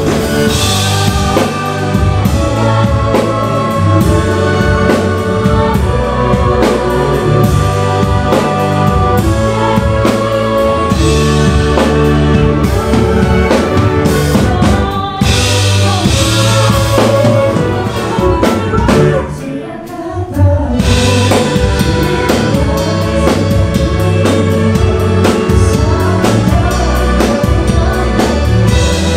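Live band playing a song with a man singing, over drum kit and bass guitar. The music thins out briefly about two-thirds of the way through, then comes back in.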